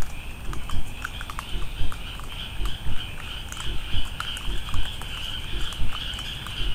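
A steady high shimmering trill of night insects, with dull low thumps about once a second and scattered faint clicks.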